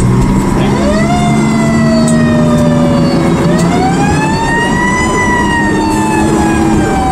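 Fire engine siren wailing, heard from inside the truck's cab. The pitch rises about a second in, sinks slowly, climbs again to a higher peak in the middle and slowly falls away, over the steady hum of the truck's engine.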